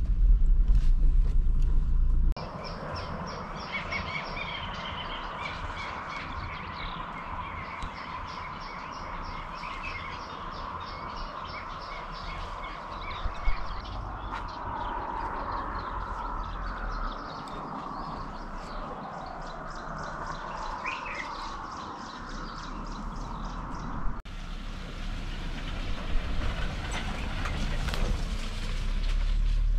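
Car cabin rumble from driving for about two seconds, cutting off sharply. Then birds chirping and singing in quick repeated notes over a steady background hum.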